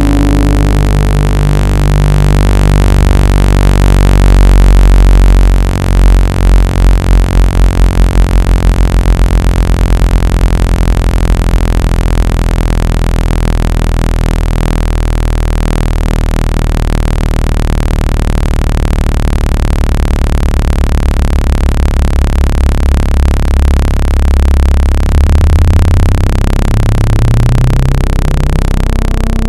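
Electronically generated water-eject tones for a Bluetooth speaker: a dense stack of steady low hums, meant to vibrate trapped water out of the speaker grille. For a few seconds about a fifth of the way in the sound throbs in fast pulses, about four a second, and near the end the tones step upward in pitch.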